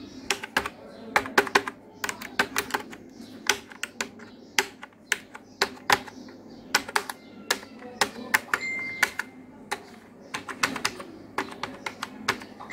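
Typing: a fast, irregular run of sharp keystroke clicks, with one short high ding about nine seconds in.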